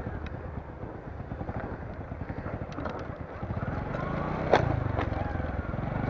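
Motorcycle engine running with an even low pulse as the bike rolls over rough rubble ground, with scattered clicks and a sharper knock about four and a half seconds in.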